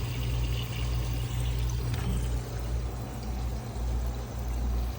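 Water leaking from a tank water heater's heating element, running and trickling steadily, over a steady low hum. The leak comes from the element rusting out.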